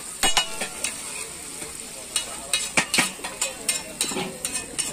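Metal spatula scraping and striking a large flat iron griddle as chopped onions and tomatoes are stirred and tossed, in sharp irregular taps and scrapes over a steady sizzle.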